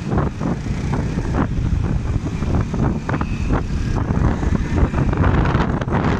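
A motorcycle riding at speed, its engine running under heavy wind buffeting on the microphone.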